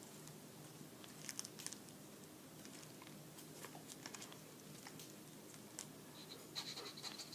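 Faint, scattered clicks and nibbling of a baby cockatiel's beak working at a small object, then near the end a high, fluttering cockatiel call starts.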